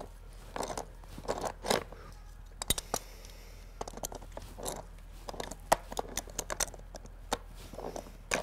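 Hands and a small tool working a plastic sprinkler swing joint: irregular clicks and scrapes as the old joint's fittings are twisted and taken apart.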